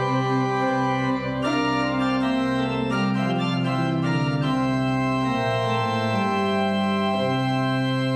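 Pipe organ playing sustained chords, with a moving inner line and a chord change about a second and a half in. The lowest notes drop out for about two seconds past the middle, then return.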